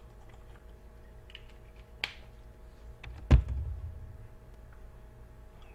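A few light clicks and taps, then a single louder knock a little over three seconds in, over a steady low electrical hum.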